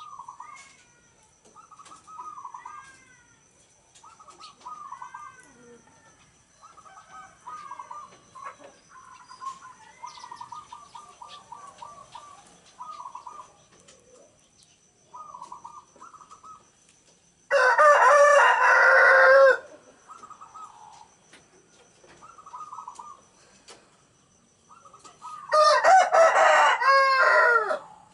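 Zebra doves cooing, their short cooing phrases repeated every second or two. A rooster crows loudly twice, about two-thirds of the way through and again near the end.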